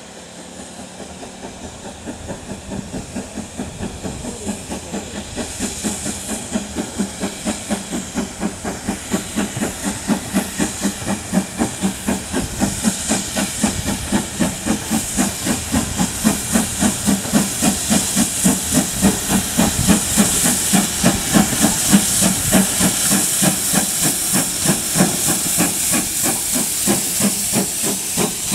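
Steam locomotive working a passenger train, its exhaust chuffing in a steady rhythm of about three beats a second over hissing steam, growing louder as it approaches and passes close by.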